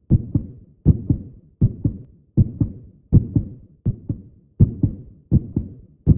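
A steady beat of paired low thumps like a heartbeat, each pair a quick 'lub-dub', about 80 pairs a minute.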